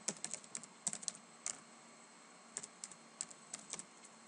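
Keystrokes on a computer keyboard: two quick runs of typing with a pause of about a second between them.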